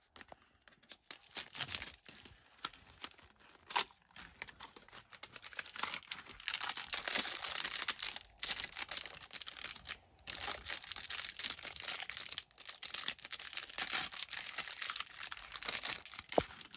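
A Sonny Angel blind box being opened by hand: the small cardboard box, then the foil wrapper inside, crinkled and torn. The crackling and tearing comes on and off, with a couple of short pauses.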